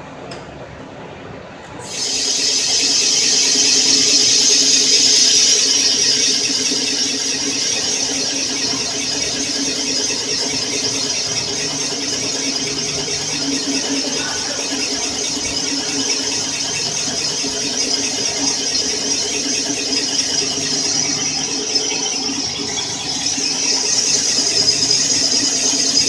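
Cylinder boring machine cutting an engine-block cylinder bore: a steady high-pitched squeal from the cutting tool over a lower machine hum, starting about two seconds in.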